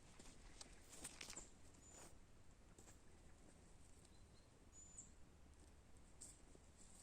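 Near silence: quiet outdoor ambience with a few short, high bird chirps and faint rustles.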